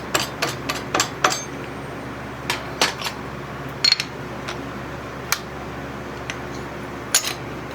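Metal tooling clinking and clicking in a string of separate knocks as a milling-machine collet is fetched and handled, over a steady low hum.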